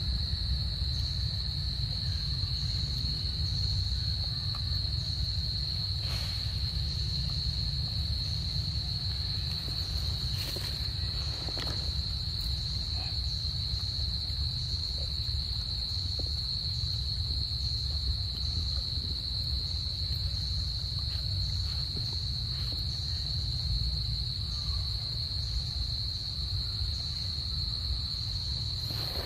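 Insect chorus in the forest: a continuous high-pitched trill, with a second insect pulsing above it, over a low steady rumble.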